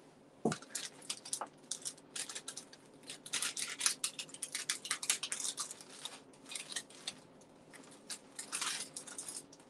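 Irregular rustling, crinkling and small clicks of paper and plastic craft supplies being handled and sorted through by hand, with one sharp tap on the table about half a second in.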